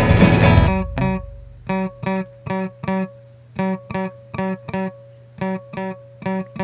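Background music: a full band drops out under a second in, leaving short clipped electric guitar chord stabs in a steady rhythm, about two or three a second, over a held low note.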